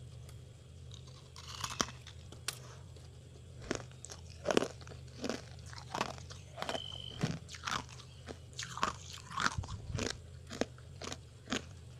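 Mouthfuls of freezer frost being bitten and chewed, crisp crunches coming about twice a second from about four seconds in, over a steady low hum.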